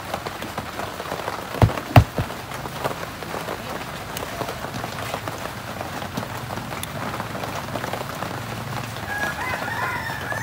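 Steady rain falling on a roof, with two sharp knocks close together about two seconds in. A chicken calls briefly near the end.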